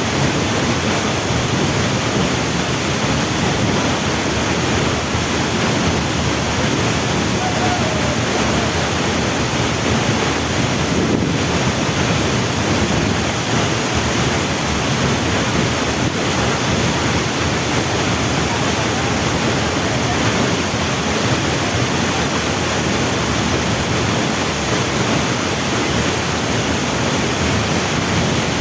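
Waterfall: steady, loud rushing of falling water.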